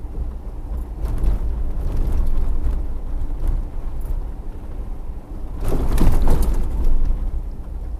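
Moving car's road and wind noise, heard from the car: a steady low rumble, with louder rushes of noise about a second in and again, stronger, around six seconds in.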